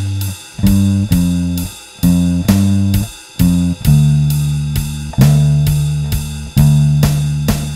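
Squier Bronco short-scale electric bass with a Nordstrand NM4v angled-pole pickup, plucked through a Seymour Duncan Studio Bass Compressor, playing a line of held low notes that change pitch about once a second. A steady drum beat plays along.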